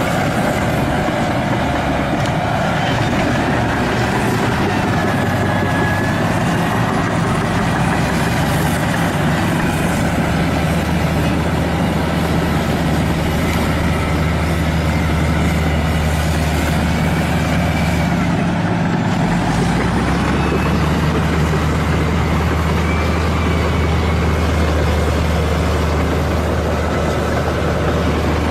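Six-rotor drone's motors and propellers running steadily: a constant low hum with faint, slowly wavering whines above it.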